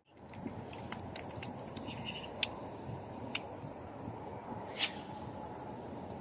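Steady wind noise on the microphone by open water, with a few sharp clicks and a short hiss about five seconds in from a fishing rod and reel being handled.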